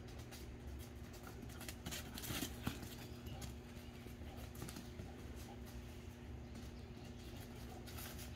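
A puppy's paws scampering over grass and dry fallen leaves: soft, scattered rustles and taps, busiest about two to three seconds in, over a faint steady hum.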